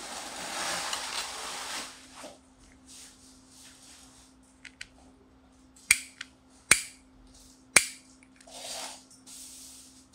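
Handling of a small plastic pen-style mini camera: a scraping rub as a thin metal plate slides against its body for the first two seconds, then three sharp clicks about a second apart as the spring back clip is opened and snaps shut against the casing, with a few fainter ticks around them.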